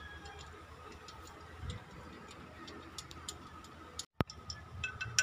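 Faint, scattered light clicks of hands handling the metal housing of an industrial sewing machine's clutch motor, over low steady background noise. The sound drops out briefly about four seconds in.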